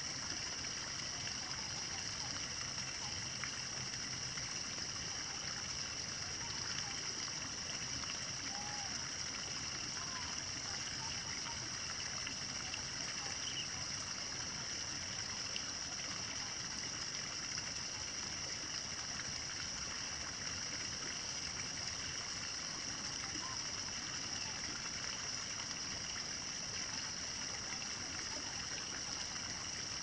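Steady morning nature ambience: an even, unbroken high-pitched drone over a wash of noise like flowing water, with a few faint bird chirps.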